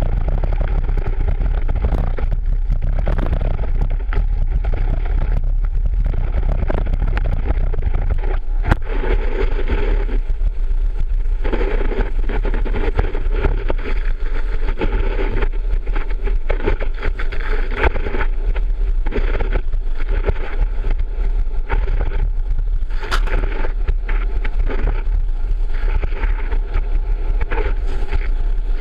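Water ski planing across the water at speed, heard from a camera mounted on the ski: a continuous rushing hiss of spray over a low rumble, with many sharp ticks of water hitting the camera housing.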